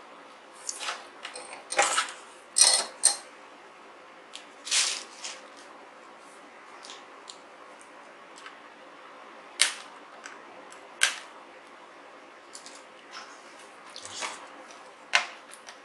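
Scattered clicks and light knocks of hands and small tools working on a keyboard's printed circuit boards. There is a cluster of clicks a couple of seconds in and two sharper single clicks later on.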